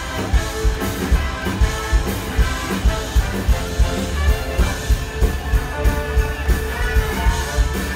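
Loud rock music from the stage of a musical, with a fast, steady drum beat of about three beats a second.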